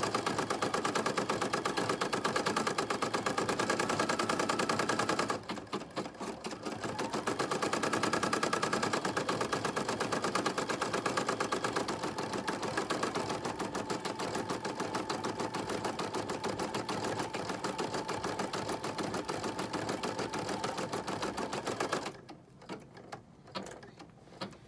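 Brother PE-770 embroidery machine stitching through felt, the needle running in a rapid, even rhythm with a short slower patch about five seconds in. It stops a couple of seconds before the end as the last stitches of the design's first step finish, leaving a few light clicks.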